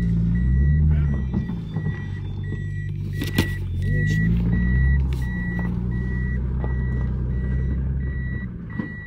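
Reversing warning beeps from a Toyota Chaser, short beeps at one pitch about one and a half times a second. Under them runs the car's naturally aspirated 1JZ straight-six, its engine note rising and falling briefly twice and dropping away near the end.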